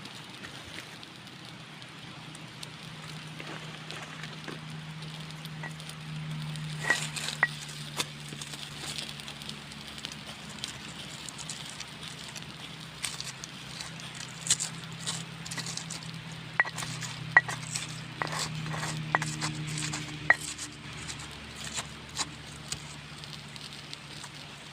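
Wood cooking fire crackling, with scattered sharp pops and snaps over a steady low hum.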